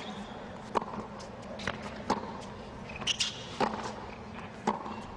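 Tennis rally on a hard court: sharp racket-on-ball strikes and ball bounces, one every half second to a second, over a quiet stadium crowd.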